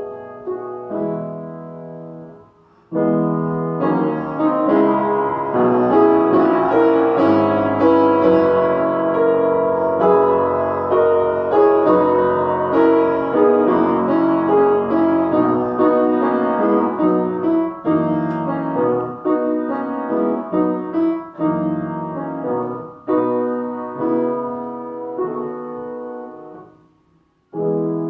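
Solo piano playing a classical piece in phrases of sustained notes and chords. The sound dips briefly between phrases about two and a half seconds in, and again just before the end.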